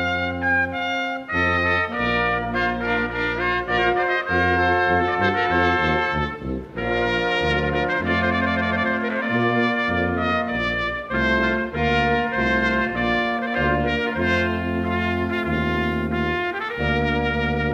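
Brass ensemble music, trumpets over held low bass notes, the chords changing every second or so.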